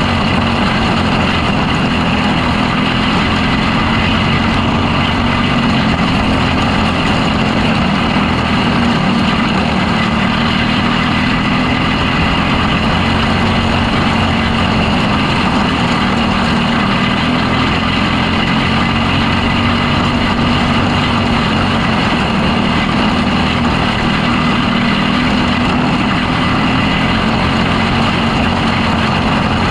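Micro sprint car's motorcycle engine running at racing speed, heard onboard at close range, with its pitch rising and falling slightly through the corners.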